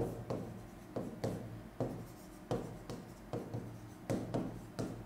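Pen writing on an interactive display screen: a run of short, sharp ticks and scratchy strokes, irregularly spaced at about two a second.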